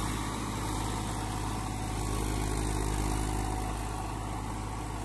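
Massey Ferguson 241 DI tractor's three-cylinder diesel engine running steadily under load as it pulls a seven-tine cultivator through the soil.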